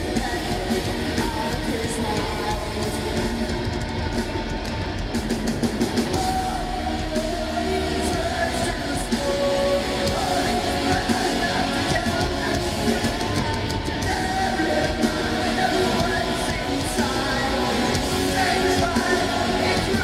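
Live rock band playing: singing over electric guitars and a drum kit, heard through a concert-hall PA.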